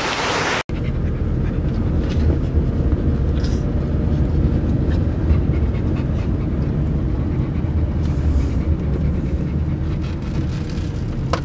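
A steady rushing hiss cuts off suddenly under a second in. Then comes the low rumble of a Tata Nexon driving, heard from inside the cabin, with a dog panting.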